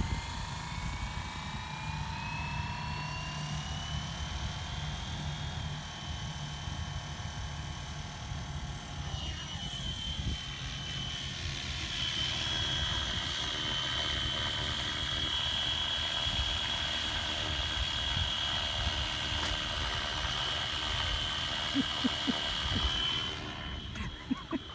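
Fly Wing FW450 electric RC helicopter's motor and rotor whining. The pitch rises as the rotor spools up, dips briefly about nine seconds in, then holds a steady high whine before dropping away near the end.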